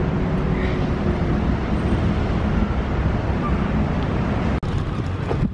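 Wind buffeting the microphone outdoors: a steady, loud rush with a heavy low rumble.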